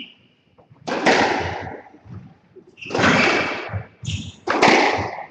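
Squash rally: the ball cracking off rackets and the court walls, three loud hits about two seconds apart, each ringing on in the court's echo.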